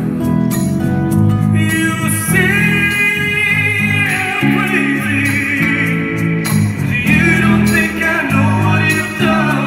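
Live acoustic band music: a male lead vocal holding long, wavering notes over strummed acoustic guitars and bass guitar.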